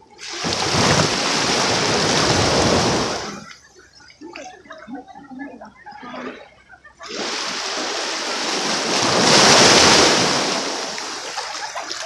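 Small waves washing up a sandy shore right at the water's edge, two in turn. Each is a loud rushing swash that swells and fades over about three to four seconds, with a quieter lull between them.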